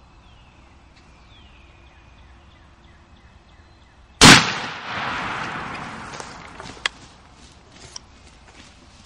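A single shotgun blast, fired at a turkey gobbler, about four seconds in, with its echo rolling away over a couple of seconds. Faint birdsong comes before it, and a few sharp clicks follow.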